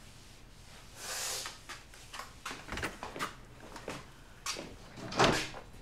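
Household clatter of someone tidying up: scattered knocks, clicks and scrapes of objects and furniture being handled, with a short scrape about a second in and the loudest knock near the end.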